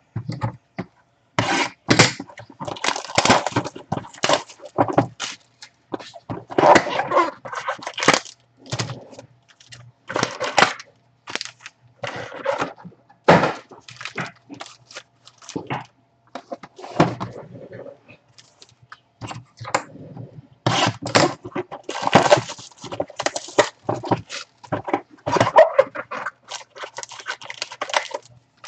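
Plastic-wrapped trading-card packs crinkling and rustling as they are handled, in irregular bouts of crackling with short pauses between them.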